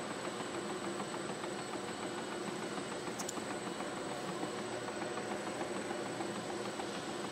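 WP TWS 9 pocket divider rounder running steadily: an even mechanical hum with a fine, rapid chatter and a thin, high steady whine.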